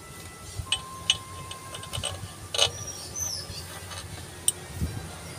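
Light metallic clinks and taps from steel bolts being handled over an open cylinder head: a handful of sharp separate ticks over a low steady hum.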